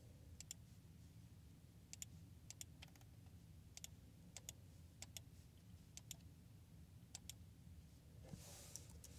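Faint computer mouse clicks, about ten spread out, most heard as a quick pair of press and release, with a brief soft hiss near the end.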